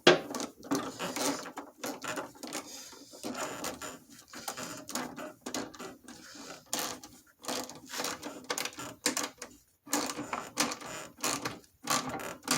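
Irregular sharp clicks and knocks of hand tools at work under the hood, with short quick runs of clicks like a ratchet turning a 7 mm socket.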